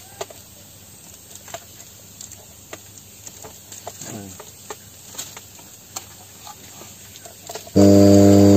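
Faint clicks and knocks of a power cord and plug being handled, then near the end a Hailea HAP-150 linear air pump switches on with a sudden, loud, steady low hum.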